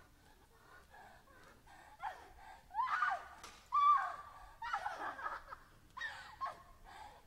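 A person's short, high-pitched gasps and gliding cries, several in a row with brief pauses between them.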